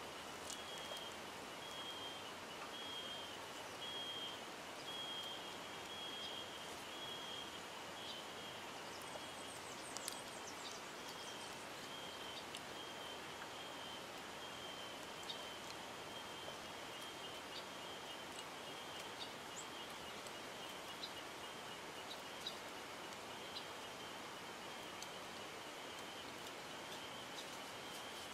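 Quiet outdoor ambience: a steady hiss with a high, short chirp repeating evenly about every two-thirds of a second, fading to a fainter continuous trill after the first half, and a few scattered faint ticks.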